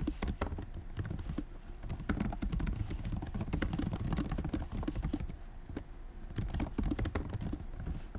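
Typing on a computer keyboard: a fast, uneven run of key clicks, several a second, with a slightly quieter stretch around the middle.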